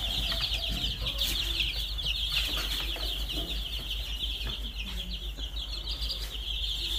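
A brood of about forty to fifty baby chicks cheeping together in a continuous, dense chorus of short, high peeps, with a few light knocks.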